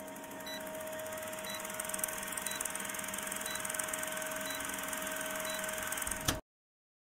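Film-projector countdown sound effect: a steady mechanical whirring hum with a faint tick about once a second, cutting off suddenly near the end.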